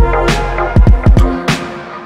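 Music: a beat of hard drum hits over deep, held bass notes and pitched chords.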